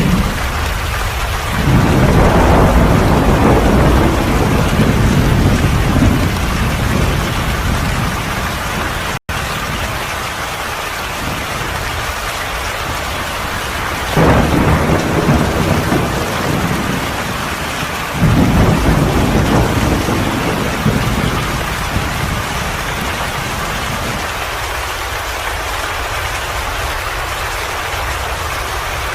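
Steady heavy rain with several low rolls of thunder swelling up and dying away. The sound cuts out for an instant about nine seconds in.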